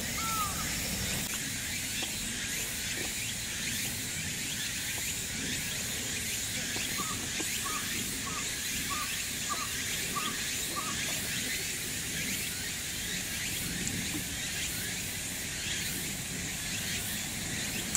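Steady high-pitched outdoor hiss, with a bird calling a short note at the start. From about seven to eleven seconds in, it gives a row of seven short, evenly spaced notes about half a second apart.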